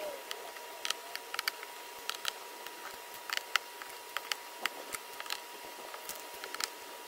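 Light, irregular clicks and taps of a hand screwdriver and small screws being worked on the plastic lid of a Milwaukee M18 wet/dry vac, with a faint steady high tone underneath.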